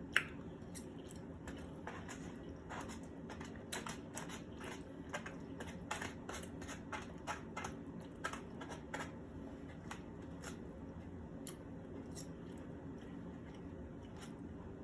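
Eating sounds close to the microphone: small, irregular clicks and smacks of chewing, a few a second, over a steady low room hum.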